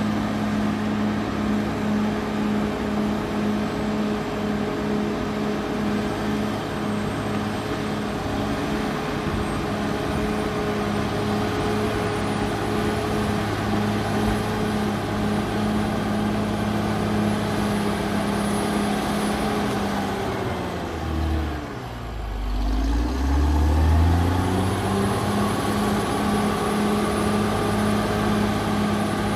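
Caterpillar D6R XL bulldozer's diesel engine running steadily under load while the dozer works soil with its blade. About twenty seconds in, the engine note falls sharply and then climbs back up to its working speed.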